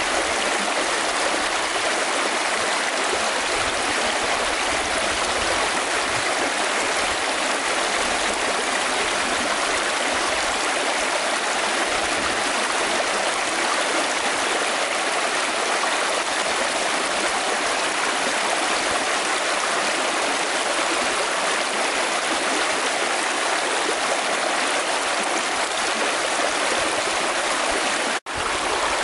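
Shallow rocky stream rushing steadily over stones, a constant even wash of water. It cuts out for an instant near the end.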